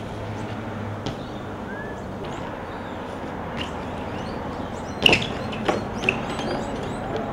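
Street ambience with distant traffic, then about five seconds in a hard crash as a BMX rider and his bike hit the asphalt, followed by two smaller clatters as the bike tumbles across the road.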